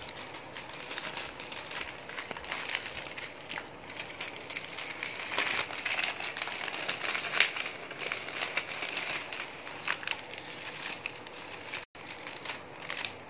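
Thin clear plastic packaging bag crinkling and crackling as it is handled and opened, with sheets of paper sliding against it.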